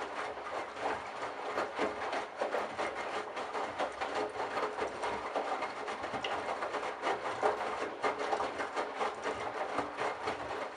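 Candy Bianca washing machine running with a dense, rattling churn from the drum, fading away at the very end.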